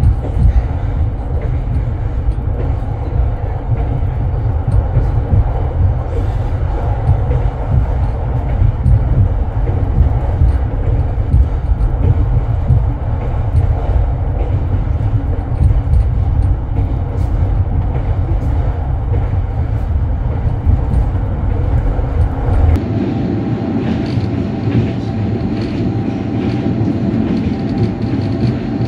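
Running noise of a moving sleeper-train carriage heard from inside the compartment: a loud, steady low rumble with faint rattling clicks. About 23 seconds in the sound changes abruptly to a lighter rolling noise with a few steady tones, as another train's carriages go by close outside the window.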